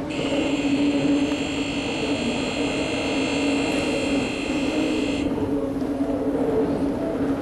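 Bucket wheel excavator running: a steady, loud mechanical drone. A high whine of several tones sounds for about the first five seconds and then cuts off suddenly.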